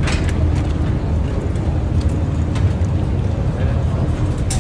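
Steady low rumble of a docked ferry's engines running, with a few faint clicks over it.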